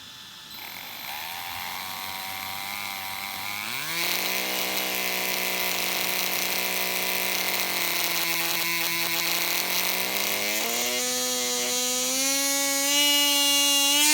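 Arrma BLX 185 brushless motor running up in steps: a whine that steps up in pitch twice, wavering near the end, with a harsh buzz over it at the higher speeds. The excessive vibration and odd noise at certain speeds come from a damaged bearing and a groove worn in the rotor shaft.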